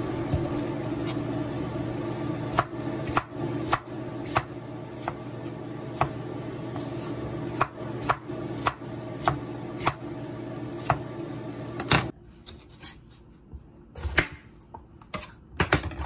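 Chef's knife slicing a bell pepper on a wooden cutting board: irregular sharp knocks as the blade strikes the board, roughly one or two a second, over a steady background hum that cuts out about twelve seconds in.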